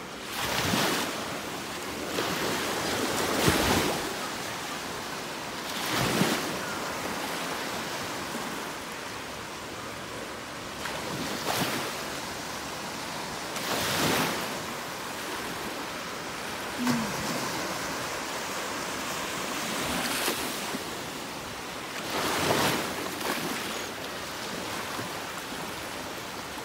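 Small surf breaking and washing in the shallows: a steady hiss of water with a louder wash swelling and fading every few seconds.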